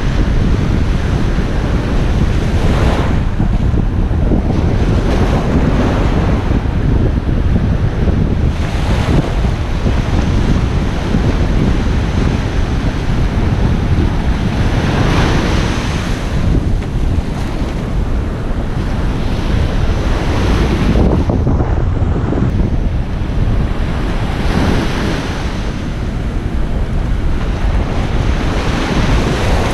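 Surf breaking on a sandy beach, with wind buffeting the microphone in a steady low rumble. Waves swell up and wash in every five or six seconds.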